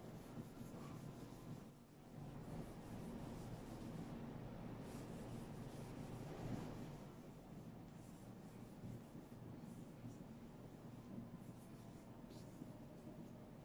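Whiteboard being wiped clean by hand: faint, steady rubbing of the wiper across the board's surface as the written figures are erased.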